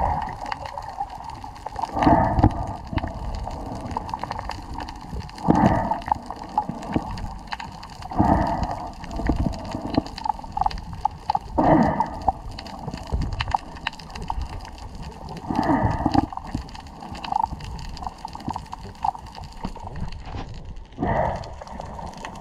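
Underwater sound picked up by a snorkeler's camera: muffled water gurgling and swishing, with a louder whoosh every three to four seconds.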